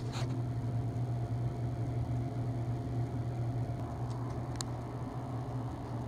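A steady low machine hum with a fainter higher tone over it, and one brief tick about four and a half seconds in.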